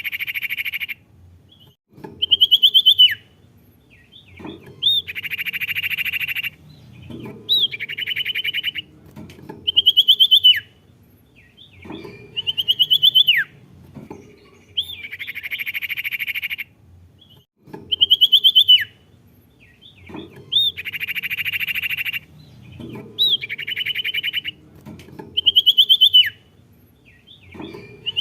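A sirtu songbird singing a repeated song. Short clear whistled phrases that rise and then fall steeply come every two to three seconds, alternating with longer harsh, buzzy chattering phrases. It is played as a bird-song track for luring or training a caged bird to sing.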